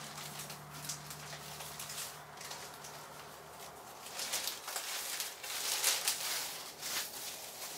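Rustling and crinkling of foam angel-wing feathers and clear plastic sheeting being smoothed and spread out by hand, in irregular handling noises that get busier and louder about halfway through.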